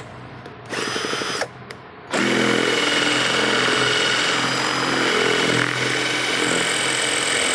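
Elephant Pro 21 V cordless impact drill boring into a block of stone with a masonry bit. The motor runs in a short burst about a second in, stops, then runs steadily from about two seconds in.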